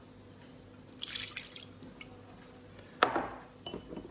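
Chinese cooking wine poured from a small bowl into an empty glass dish, a short splashing pour about a second in. About three seconds in comes a single sharp knock, the loudest sound.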